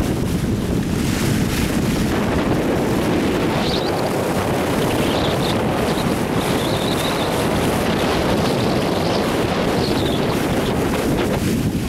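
Water rushing and splashing along the hull of a sailing yacht under way, with wind buffeting the microphone. The noise is steady throughout.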